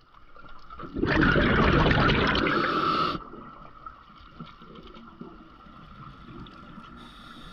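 Underwater sound through a diving camera's housing: a loud rush of water lasting about two seconds, starting about a second in, then a quieter steady underwater hiss with a faint high steady tone.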